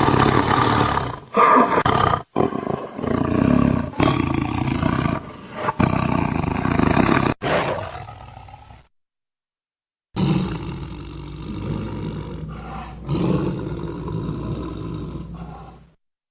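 Tiger growling and roaring in a run of long calls with abrupt cuts between them. It stops for about a second past the middle, then a second long growl runs until it cuts off just before the end.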